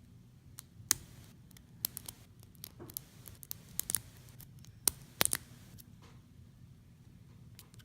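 Steel hook pick clicking and scraping against the pin stacks inside a BEST padlock's core while single-pin picking under tension: irregular sharp ticks in small clusters, busiest in the first five seconds or so, then sparser.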